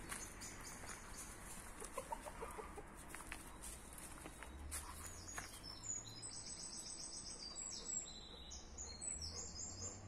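Hens clucking in a chicken run, a few short calls about two seconds in. From about halfway, a small bird's high, rapid trills repeat over them.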